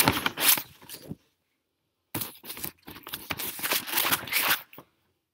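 Paper rustling and crinkling, in two spells: one that stops about a second in and a longer one from about two seconds in.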